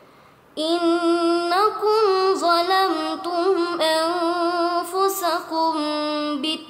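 A young woman reciting the Qur'an in a melodic murottal chant, holding long ornamented notes. It starts about half a second in, after a short breath pause, and breaks off briefly near the end.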